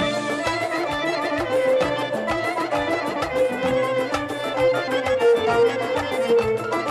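Instrumental music in a traditional folk style: a held melody over a steady percussion beat.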